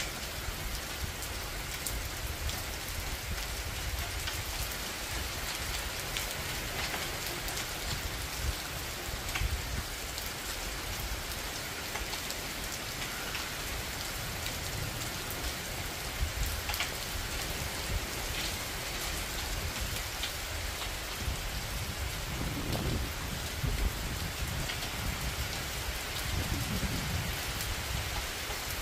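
Steady monsoon rain falling on trees and surfaces, with scattered individual drops ticking sharply. Two brief low rumbles come near the end.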